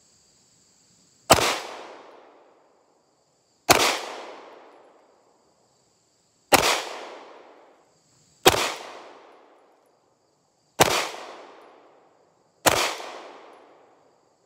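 Walther PPQ 9mm pistol fired unsuppressed, six single shots at a slow, uneven pace, each followed by an echo that dies away over about a second.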